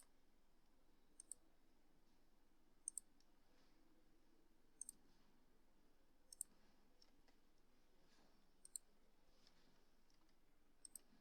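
Computer mouse double-clicks, about seven pairs of faint, sharp clicks spaced one to two seconds apart, over near-silent room tone.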